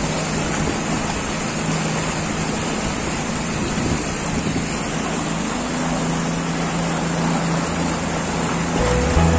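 Outboard motor running steadily on an inflatable boat under way, mixed with the rush of water and wind.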